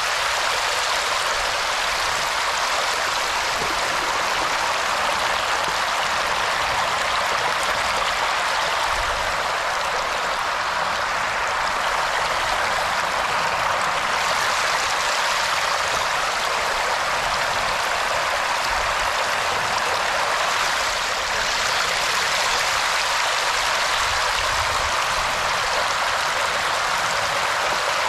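Flowing water making a steady, even rush with no breaks.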